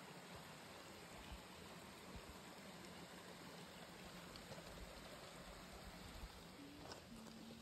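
Near silence: a faint steady outdoor hiss, with a few light clicks near the end.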